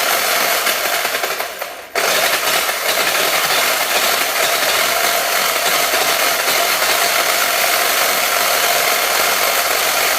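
RC car's motor and drivetrain running with a harsh, rattling grind, high-pitched and without a clear tone. It fades and drops out briefly a little before two seconds in, then comes back steady at full level.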